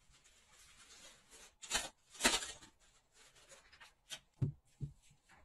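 Clear plastic zip-lock bag of stopins rustling and crinkling as it is handled, twice in short spells, followed by three light taps about a second and a half from the end.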